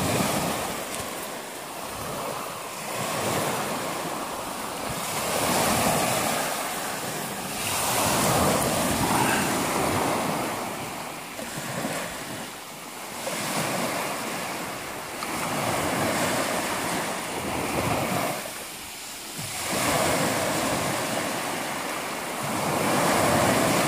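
Small sea waves breaking and washing up the shore, the surf swelling and falling every few seconds.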